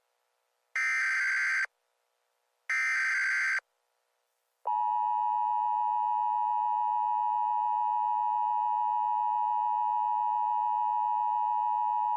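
Two bursts of an Emergency Alert System SAME header, each a shrill digital data squawk just under a second long, about a second apart. After a short gap, from about five seconds in, the EAS two-tone attention signal sounds: a steady, harsh dual tone near 1 kHz.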